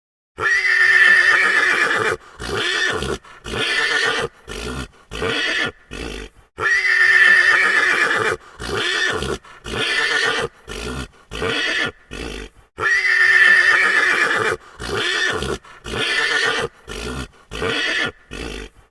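Horse neighing, the same recording played three times in a row. Each time, a long loud whinny is followed by a string of short, choppy neighs.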